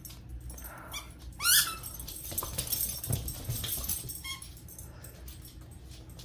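Dogs playing with new chew and squeaky toys: a short, high squeal rising in pitch about one and a half seconds in, a smaller one near four seconds, and soft knocks and scuffling between.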